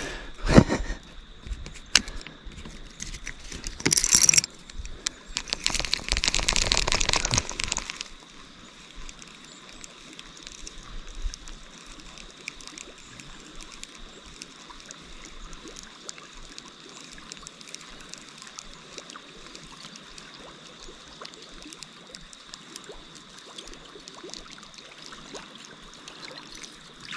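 Water splashing and sloshing in loud irregular bursts through the first eight seconds, as of a person wading in a river, then a quieter steady rush of flowing river water.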